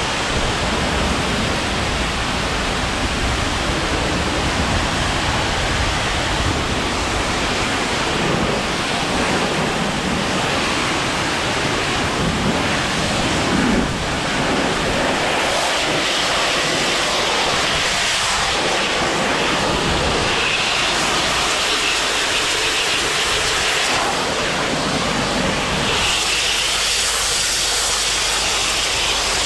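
A 10½ GPM pressure washer spraying a rinse: a steady hiss of high-pressure water jet that holds unbroken.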